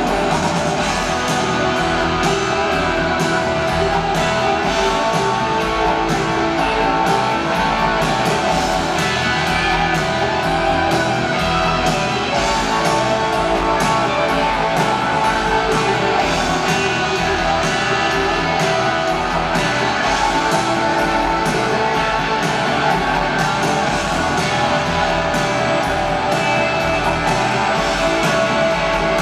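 Live rock band playing loud, with electric guitars over drums and percussion, recorded from an arena audience.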